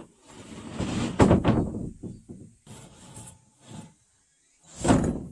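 An OSB board slides and scrapes against wooden ceiling beams as it is pushed into place overhead. A long rubbing scrape builds to its loudest just over a second in, smaller scuffs follow, and another loud scrape comes near the end.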